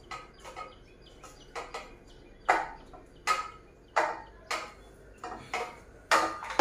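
Metal clinks and knocks from the steel tubes and fittings of a hand-assembled trolley frame being fitted together: about a dozen sharp strikes with a brief ring, irregularly spaced, the loudest about two and a half seconds in and again near the end.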